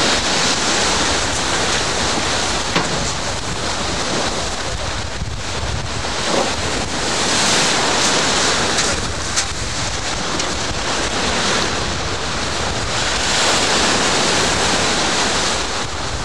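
Sea surf breaking and washing at the shoreline in repeated surges, with wind buffeting the microphone.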